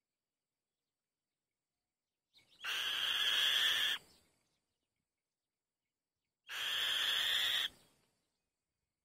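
A kite's harsh, rasping screech, given twice, each call lasting a little over a second.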